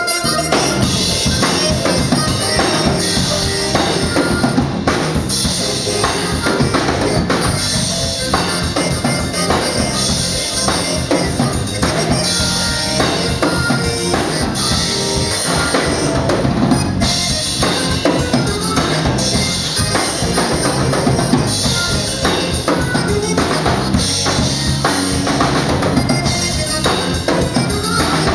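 Live Tejano band playing an instrumental passage without vocals, with the drum kit's bass drum and snare to the fore.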